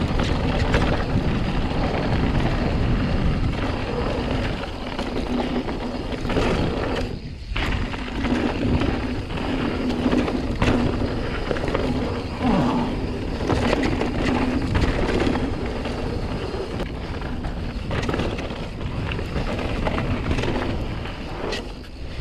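Mountain bike descending fast over loose, rocky dirt: tyres crunching and rolling on gravel, with frequent rattles and knocks from the bike over rocks and roots, under wind rushing over the camera microphone. It goes briefly quieter about seven seconds in.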